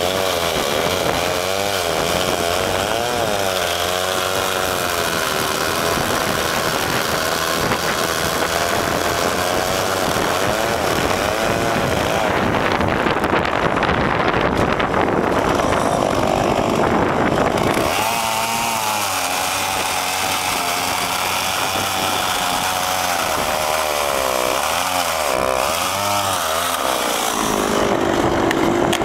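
Petrol chainsaw running and cutting through a tree trunk, its engine pitch rising and falling as the chain bites, with a noisier stretch midway and a steadier tone near the end.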